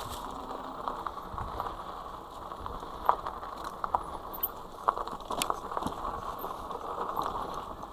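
Fat-tyre electric mountain bike rolling over a dirt single-track trail: steady tyre and ride noise with irregular sharp clicks and knocks from the bike and trail.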